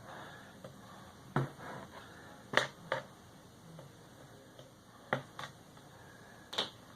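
Sharp, scattered clicks and taps of small parts and tools against the inside of an opened MacBook Pro. There are about six of them, some coming in quick pairs.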